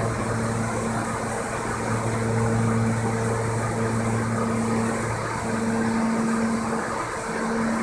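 R160A-2 subway train standing at the platform, its onboard equipment giving a steady hum over a hiss. The low tone drops out briefly about five seconds in and again near the end.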